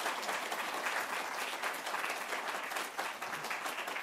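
Audience applauding, a dense spread of clapping that eases off slightly near the end.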